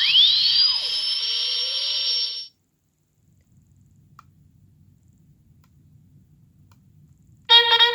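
A mini sound-effects machine's small speaker playing a hissing effect with a whistle that rises in pitch, cutting off abruptly about two and a half seconds in. After a few seconds of faint handling rumble, it starts playing a short electronic tune near the end.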